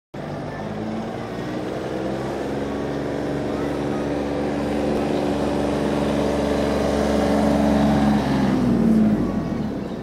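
A motor vehicle's engine running steadily and growing louder as it approaches, then dropping in pitch as it passes near the end.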